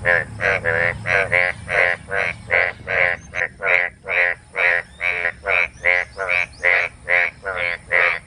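Frog croaking in a rapid series of short, rasping calls, about three a second without a break.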